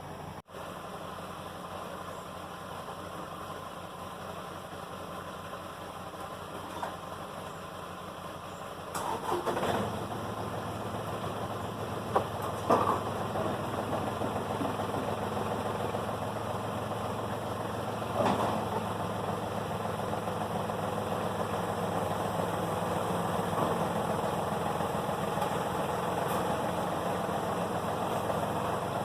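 A tractor engine running at idle. About nine seconds in it gets louder and keeps running at that higher level, with a few brief knocks.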